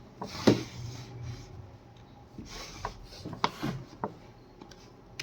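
A few scattered computer keyboard key clicks with some rustling, as typing begins.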